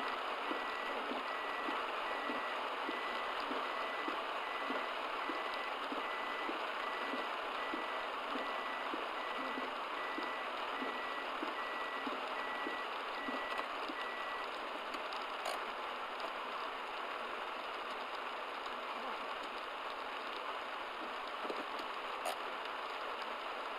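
Heavy rain hissing steadily on a car. An electronic beep repeats about twice a second with a faint tick in step, and stops about two-thirds of the way through.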